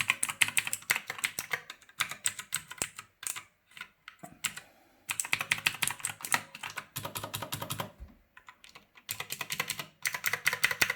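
Typing on a Redragon K583 mechanical gaming keypad with Otemu blue clicky switches: fast runs of sharp key clicks in three bursts with short pauses between them. It is pretty loud.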